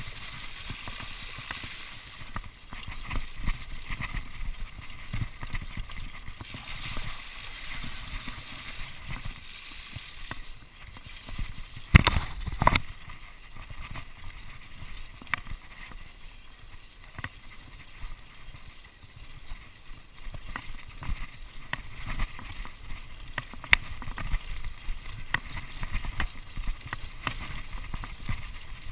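Mountain bike ridden fast downhill, its tyres splashing through a waterlogged track at first, then rattling and clattering over rough dirt and stones. A hard double knock from the bike about twelve seconds in is the loudest sound, with more sharp knocks from bumps throughout.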